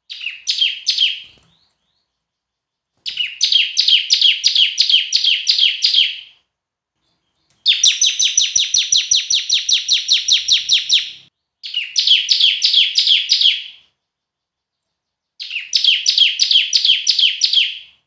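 Bar-winged prinia (ciblek) singing loudly in five bursts. Each burst is a fast run of repeated high chirps lasting two to four seconds, with short pauses between the bursts.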